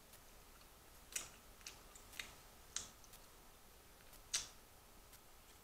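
Eating sounds from fried chicken being chewed and pulled apart by hand: a handful of short, sharp, wet clicks at irregular intervals, the loudest about four seconds in.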